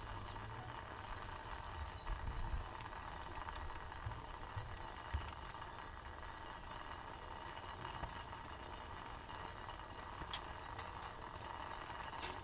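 Steady low rumble and hiss of a pot of water boiling eggs on a lit gas burner, with one sharp click about ten seconds in.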